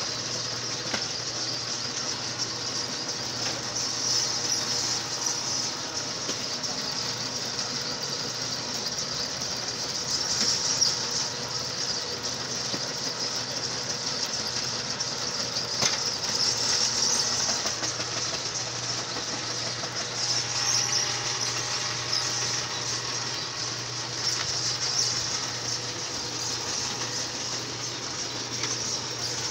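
Motor-driven clay mixing machine running steadily as soil is fed through it: a constant low hum with a hiss that swells and fades every few seconds, and an occasional knock.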